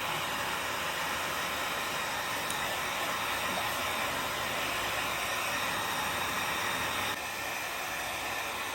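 Hair dryer switched on and blowing steadily, dropping slightly in level about seven seconds in.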